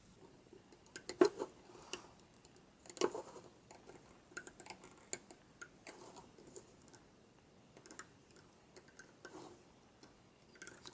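Faint, irregular clicks and taps of a hook tool and rubber bands against the plastic pegs of a Rainbow Loom as border bands are looped forward, the loudest clicks about one and three seconds in.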